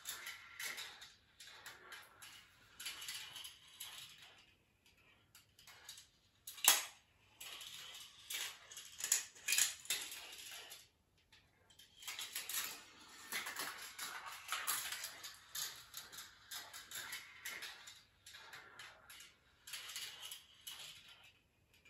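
Steel marbles rolling and rattling along the plastic rails of a GraviTrax marble run, with many clicks as they drop through and knock against the pieces. One sharp click stands out about seven seconds in, and the rolling stops briefly twice, around five and eleven seconds.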